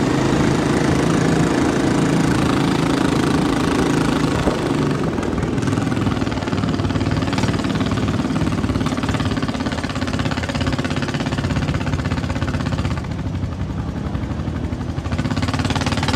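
A vehicle engine running steadily. It eases off for about two seconds near the end, then picks up again.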